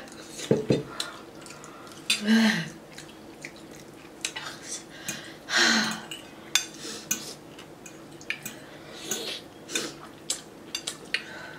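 Metal forks clicking and scraping against ceramic bowls of noodles, with a few short louder slurps of noodles about two seconds in and again near six seconds.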